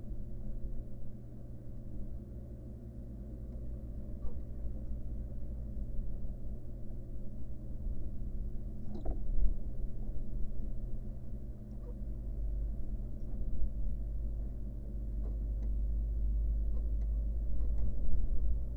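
Steady low electrical hum and rumble from a nest-box camera microphone, with a few faint ticks and scratches scattered through it.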